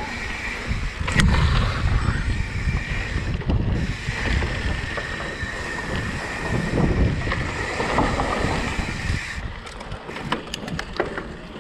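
Mountain bike riding fast down a dirt trail: wind rushing over the camera microphone and tyres rolling over dirt, with a steady high buzz that cuts off about nine seconds in and a few short clicks near the end.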